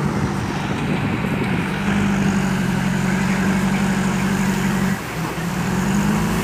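A JCB backhoe loader's diesel engine runs steadily as the machine pushes its front bucket into a heap of crushed stone. The engine note dips briefly about five seconds in, then picks up again.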